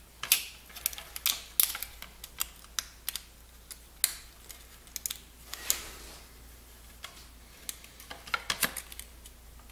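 Irregular small clicks and ticks of fingers working a plastic keyboard membrane ribbon into its board connector, the tail flexing and snapping against the contacts as it keeps catching instead of sliding in. A brief rustle of the plastic comes about halfway through, and a quick run of clicks near the end.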